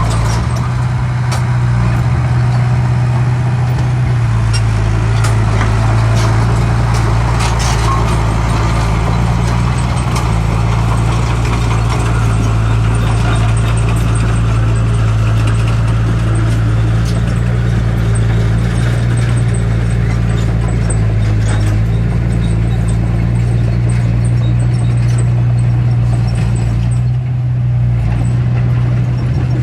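Diesel engine of a heavy earthmoving machine running steadily at an even pitch, with scattered short clanks and knocks over it.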